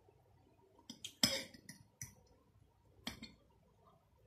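Metal fork clinking and scraping against a ceramic plate while twirling spaghetti: a few sharp clinks about a second apart, the loudest a little over a second in.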